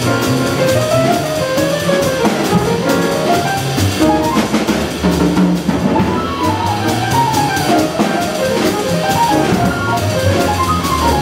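Live jazz combo: an acoustic grand piano solos in fast runs of notes that climb and fall, over a walking upright bass and a drum kit keeping time on the cymbals.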